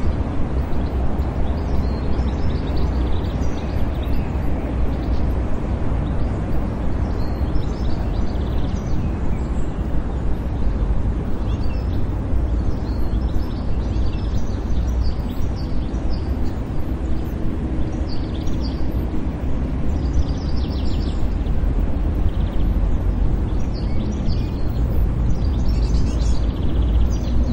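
City park ambience: a steady low rumble with short bird chirps breaking in again and again.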